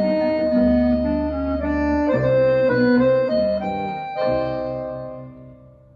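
Organ-like music played back through a single-ended 300B valve amplifier and a 1940s Philips 8-inch full-range speaker: held chords that change about two seconds in and again about four seconds in, the last chord dying away near the end.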